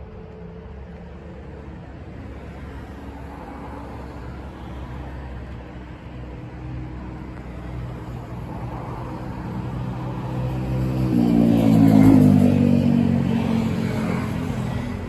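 A road vehicle passing close by over a steady traffic hum. Its engine and tyre noise build up to loudest about twelve seconds in, then fade as its pitch drops.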